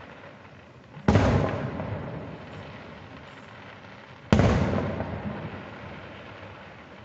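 Aerial firework shells bursting: two loud booms about three seconds apart, each followed by a long rumbling echo that slowly dies away.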